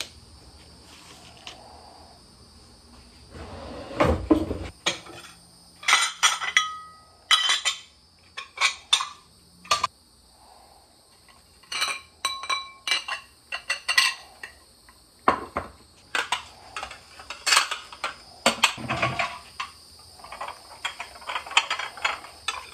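Dishes and glassware being handled and set down: a string of separate clinks and knocks, some ringing briefly. There is a heavier knock about four seconds in.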